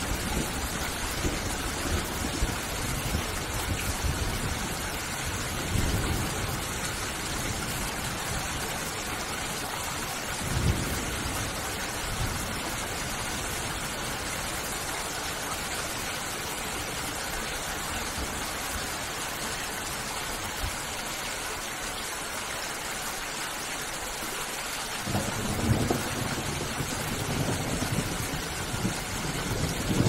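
Steady rain with low rolls of thunder: short rumbles about six and ten seconds in, and a longer rumble building over the last few seconds.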